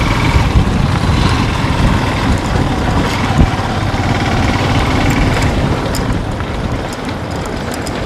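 Motorbike engine running steadily while riding over a dirt track, heard from the rider's seat with road and wind rumble, and one sharp knock about three and a half seconds in.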